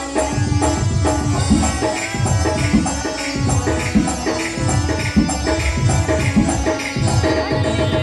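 Loud music with hand-drum playing, its low strokes bending down in pitch.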